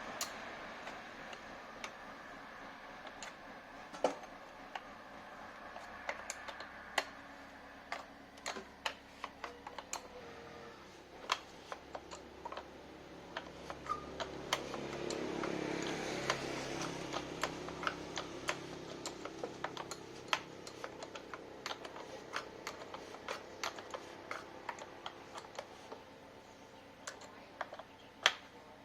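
Irregular light clicks and taps of small parts and hand tools being handled during a repair, scattered unevenly with a faint background hiss.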